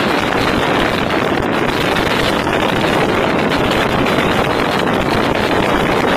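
Steady rushing wind on the microphone of a phone filming from a moving vehicle, with the road noise of riding in traffic mixed in.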